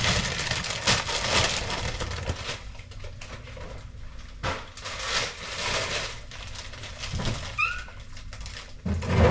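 Plastic shopping bags rustling and crinkling as groceries are unpacked, with two short high squeaks about eight seconds in.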